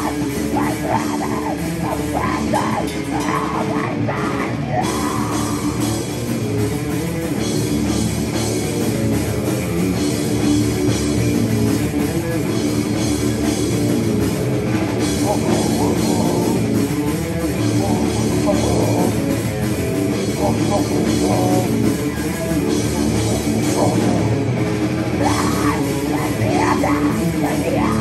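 Live metal band playing: electric guitar, bass guitar and a Mapex drum kit, loud and continuous.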